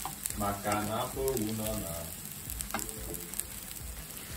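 Fried rice with prawns and squid sizzling in a wok while a slotted metal spatula stirs and scrapes it, with a few light clicks of the spatula against the pan. A short run of pitched notes from background music sounds over it from about half a second to two seconds in.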